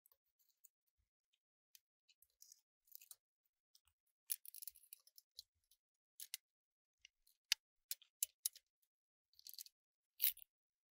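Sparse small clicks, ticks and short rustles of hands handling a tool and the open cassette deck's chassis and wiring, the sharpest ticks in a run near the end.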